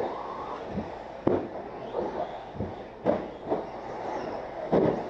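1/8-scale RC buggies running on an indoor dirt track: steady rumble and clatter with three sharp knocks, echoing in a large hall.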